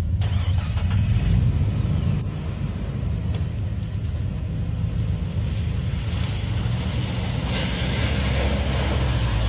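Jeep Wrangler YJ engine running at low speed as the Jeep drives down the trail. About three-quarters of the way through, muddy water sloshes and splashes as it drives into the mud hole.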